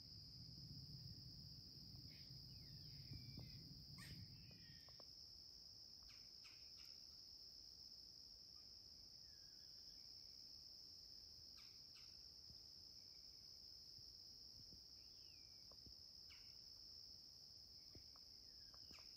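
Faint insect chorus: a steady, high-pitched drone that never lets up, with a few short chirps scattered over it. A low rumble underneath stops about five seconds in.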